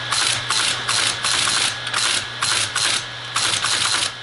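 Teletype ASR 33 typed on at its keyboard, running with a steady motor hum and clattering through one character cycle after another, about three a second, printing and punching paper tape. The freshly readjusted tape punch is now punching all its holes.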